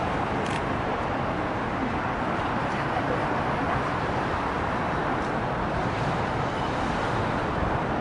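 Steady, even background rumble and hiss with no distinct events.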